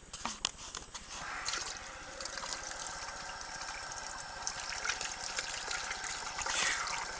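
Tap water running steadily, coming on about a second in after a few clicks.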